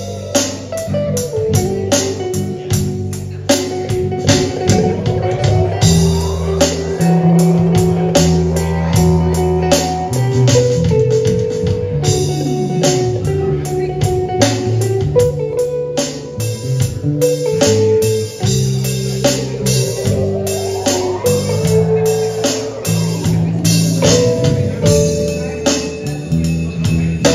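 Live instrumental rock-blues jam: electric guitar playing lead over electric bass and an electronic drum kit keeping a steady beat. Twice the lead line swoops up and back down in pitch.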